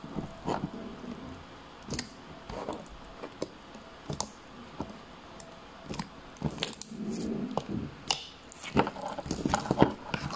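Fingers poking and squeezing thick pink slime in a plastic tub: irregular wet squishes with many small sticky pops and clicks, busier and louder near the end as the slime is pulled out of the tub.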